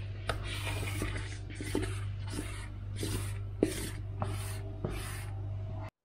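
Plastic squeegee rubbing and scraping over self-adhesive vinyl film on a wall, in a string of short repeated strokes as the film is smoothed flat, over a steady low hum. The sound cuts off abruptly near the end.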